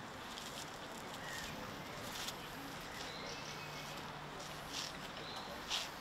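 Quiet outdoor ambience with a few faint bird chirps and a few short crunches, like footsteps on a gravel path.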